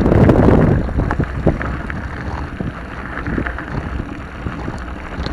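Wind buffeting the microphone of a camera riding along on a mountain bike descent, over the rattle and crunch of bike tyres on a gravel dirt track, with scattered small knocks. The wind noise is strongest in the first second, then eases.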